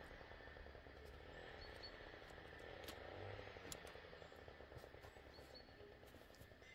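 Near silence: faint background tone with a few light ticks.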